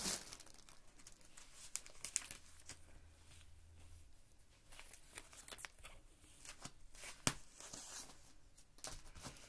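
Clear plastic wrapping on a bolt of fabric crinkling and tearing as it is pulled off and the cloth is unrolled. It comes as faint, scattered rustles and small clicks, with one sharper click about seven seconds in.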